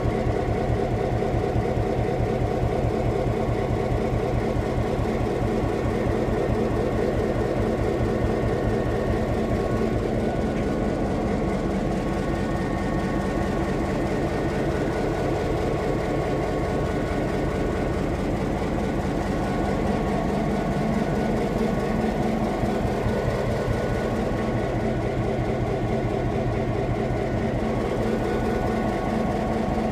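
EMD SD9 diesel locomotive's 16-cylinder two-stroke engine running steadily at low speed, with a fast, even pulsing and a few steady whining tones above it.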